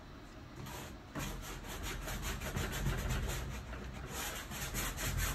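Rapid back-and-forth rubbing strokes on a stretched painted canvas, starting about a second in, as the surface is scrubbed by hand to lift and spread dried copper spray paint.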